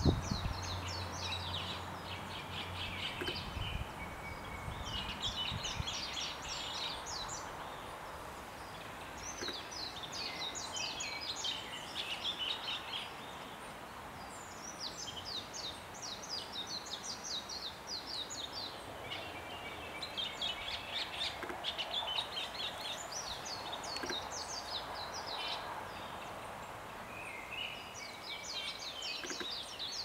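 Male chestnut-cheeked starling singing its territorial song: phrases of rapid high notes, each two to three seconds long, repeated with short pauses. A low rumble sounds in the first few seconds.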